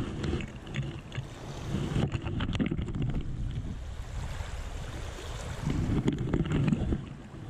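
Wind gusting on the microphone over open water, a low rumble that swells and fades, with a few small clicks about two seconds in.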